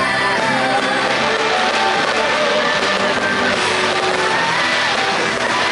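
Music playing steadily at an even, fairly loud level.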